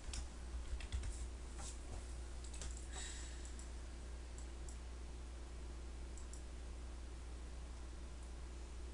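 A few faint clicks in the first three seconds over a steady low hum.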